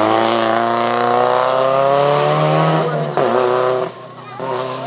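Rally car engine running hard as it passes, its note falling steadily for about three seconds, then breaking and dropping away about four seconds in.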